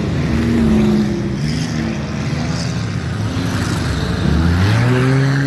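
Four-cylinder street stock race cars running on a dirt oval, their engines rising and falling in pitch through the turns. About four seconds in, one engine climbs sharply in pitch as a car accelerates.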